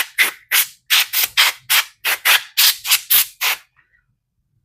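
Compressed air being sprayed in quick short spurts, about three or four hissing blasts a second, blowing dust off a table. The spurts stop a little over three and a half seconds in.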